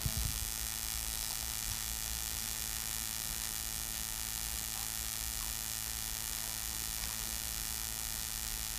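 Steady electrical mains hum with a layer of hiss: the background noise of the sound system.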